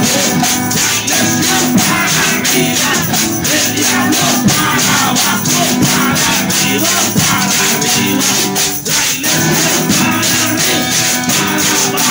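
Live upbeat Spanish-language praise chorus: a man singing into a microphone over a strummed acoustic guitar, with hand percussion rattling on a steady quick beat.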